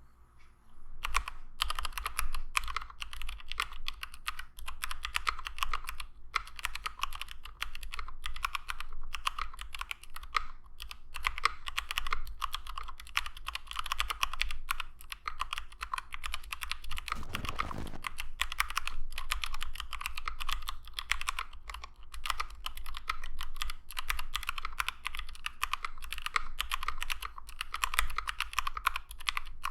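Fast, continuous typing on a custom 60% HHKB-layout mechanical keyboard with lubed, filmed Domikey x Kailh Cyberpunk Box 65 g switches, Durock V2 stabilizers and ABS doubleshot keycaps. It starts about a second in.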